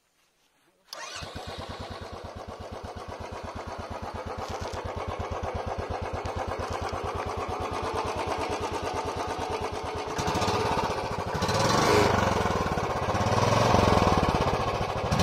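Royal Enfield Bullet 350 ES's 346 cc single-cylinder four-stroke engine starts about a second in and settles into a steady, even idle thump. In the last few seconds it is revved up and down several times, loudest near the end.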